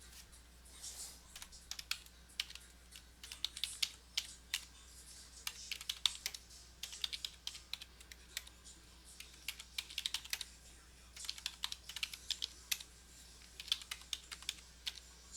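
Typing on a computer keyboard: quick bursts of keystrokes with short pauses between them, over a steady low electrical hum.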